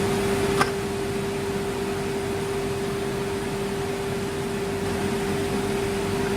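CNC router running, its spindle giving a steady whine over a steady machine hum, with a single sharp click about half a second in.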